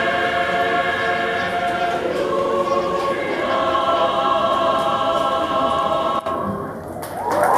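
Large mixed choir of men and women singing held chords in several parts, closing about six seconds in. Audience cheering and whooping starts right at the end.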